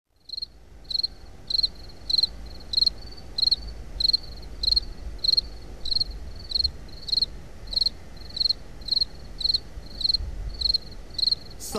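A cricket chirping steadily, a little under two chirps a second, over a low hum.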